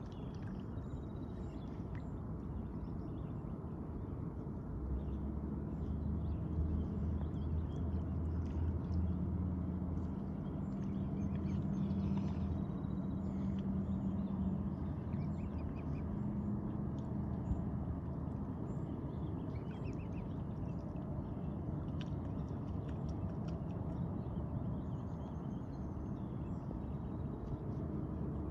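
Mute swans and cygnets dabbling and feeding at the water's surface, with small splashes and bill clicks. A low motor hum rises about five seconds in and fades out after a dozen seconds or so.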